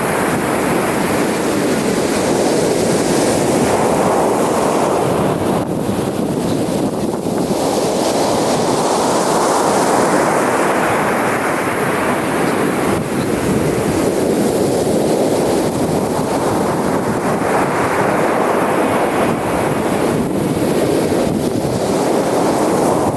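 Ocean surf breaking on a beach. The waves swell and wash in about every five to six seconds.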